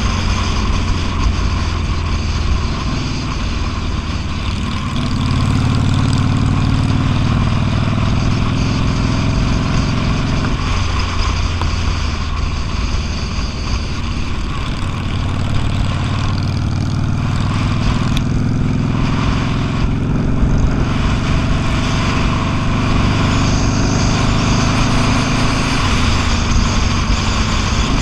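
V-twin motorcycle engine running at road speed under a steady rush of noise, the engine note rising and falling a few times as the throttle changes.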